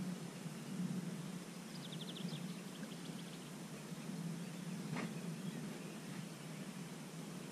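Quiet outdoor riverbank ambience: a steady low rumble, with a faint, quick run of high ticks or chirps about two seconds in and a single sharp click about five seconds in.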